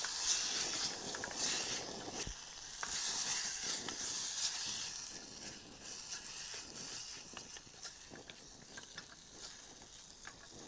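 Chicken masala sizzling and frying in a steel pot on a small camping gas stove, stirred with a spoon that clicks against the pot now and then. The sizzle is loudest in the first half and softer later.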